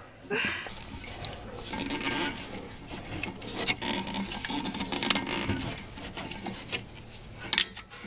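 Scraping and rubbing of hands and tools on a brass air fitting as it is threaded onto the bus's air-brake line, with a few sharp metal clicks, the loudest near the end.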